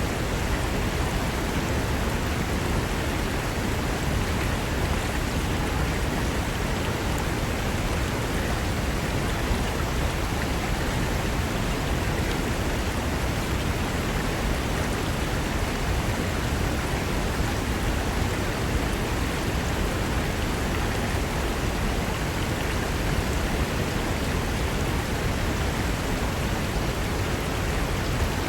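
Fast-flowing mountain river rushing over rocks, a steady, even rush of water with no let-up.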